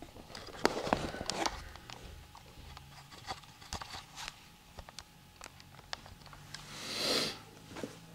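Handling noise: a run of sharp clicks and knocks as a smartphone on its charging cable is picked up and moved about, densest about a second in and scattered after, with a short rushing rustle near the end.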